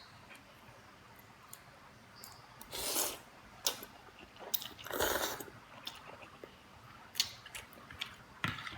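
Close-miked eating of Indomie noodle soup with rice: chewing, with small wet clicks and two longer, louder sounds about three and five seconds in.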